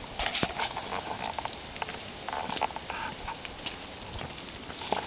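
26-day-old boxer puppies scuffling and wrestling in grass: irregular rustles and taps of paws and bodies, with a few short squeaks near the middle.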